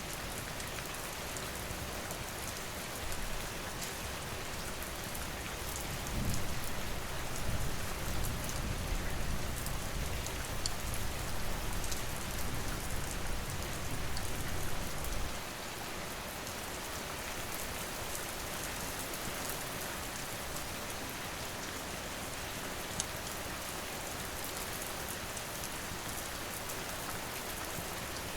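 Steady rain falling. From about six seconds in, a low thunder rumble rolls for some nine seconds and then cuts off, with a few faint crackles scattered through.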